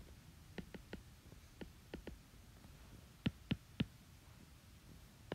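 Stylus tip tapping and ticking on a tablet's glass screen while handwriting: a string of light clicks at irregular intervals, with a quicker, louder cluster of three a little past three seconds in.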